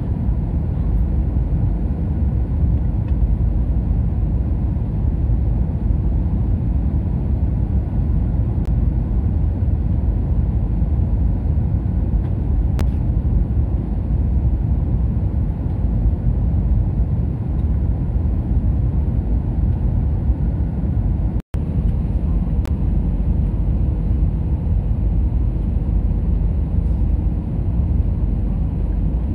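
Steady low drone of airliner cabin noise in flight, the engines and rushing air heard from a window seat on the descent. The sound cuts out for an instant about two-thirds of the way through.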